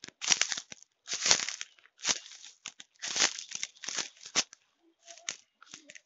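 Footsteps crunching and rustling through dry litter of dead fern stalks and twigs: a string of irregular crackly steps, roughly one a second.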